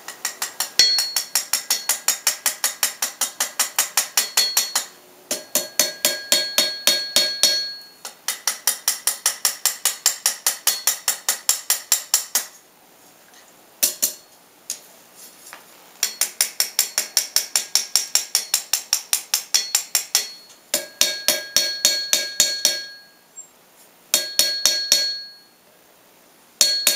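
Hand hammer forging a steel bar on an anvil: quick runs of blows, several a second, with the anvil ringing after each strike, broken by short pauses between runs.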